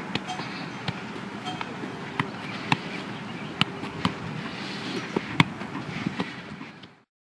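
Football being juggled on the feet: sharp knocks of the ball striking the boot at irregular intervals, about one a second, over steady background noise. The sound cuts off abruptly near the end.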